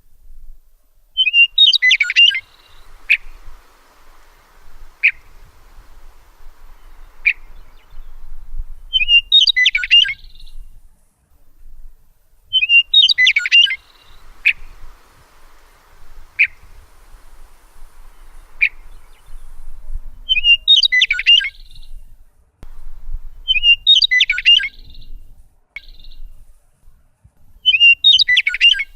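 Songbird calling: short bursts of quick high chirps about a second long, repeated every few seconds, with single sharp chip notes in between.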